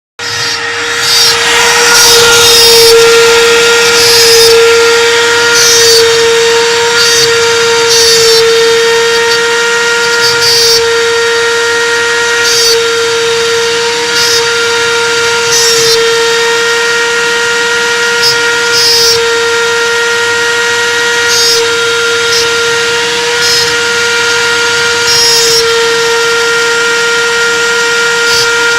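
Hobby CNC machine's spindle whining at a steady pitch while its end mill rough-cuts aluminium. The cutting noise swells in short pulses every second or two as the tool bites into the stock.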